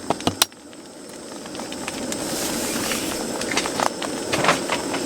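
Egg fried rice sizzling in a pan, with chopped scallions just added. A few sharp spatula clicks at the start, then the sizzle swells over about two seconds and holds steady, with scattered ticks.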